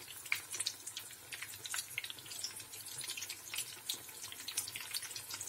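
Hot oil sizzling and crackling around potato chops (aloo chop) shallow-frying in a pan: a steady stream of tiny pops.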